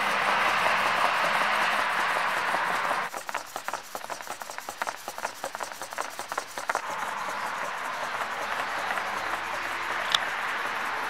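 Single-servo Arduino robot bug rocking and walking, its servo and wire legs giving a quick irregular run of light clicks and taps on painted wooden boards from about three seconds in for roughly four seconds. A louder steady rushing noise fills the first three seconds.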